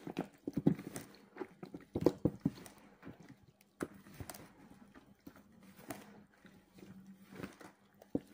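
Gloved hands squishing and turning raw chicken pieces, potato chunks and onion in a wet, oily marinade in a plastic basin: irregular wet squelches and slaps in short clusters.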